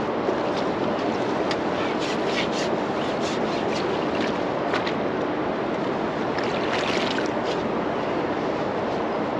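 Steady wind noise on the microphone over the river, with scattered short light ticks and a denser cluster of them about two-thirds through.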